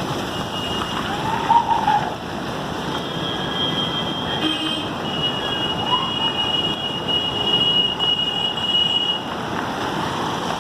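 Steady rushing roar of floodwater pouring through the dam, with a high steady tone sounding through the middle and a few brief higher sounds over it.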